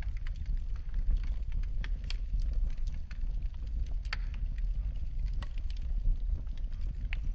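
Wood fire in a fireplace crackling, with scattered sharp pops, a few louder ones about four seconds in and near the end, over a steady low rumble of the burning fire.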